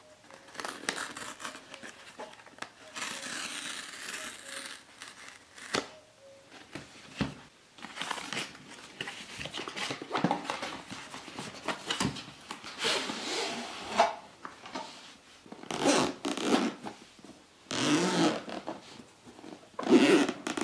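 Cardboard packaging being handled by hand: a box and its card inserts slid apart and pulled out, in a run of irregular scraping and rustling strokes.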